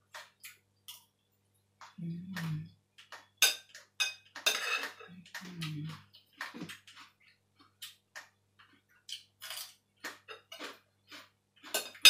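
Someone eating from a bowl: a spoon clicks and scrapes against the dish among scattered small mouth and chewing noises, with two short hummed "mm" sounds, about two seconds in and again near the middle.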